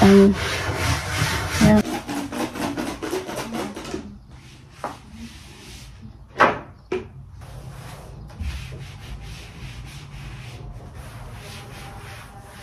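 Cloth wiping back and forth over a wardrobe shelf close to the microphone, in fast, loud rubbing strokes for the first four seconds. It then turns to fainter, scattered wiping, with two sharper strokes a little past the middle.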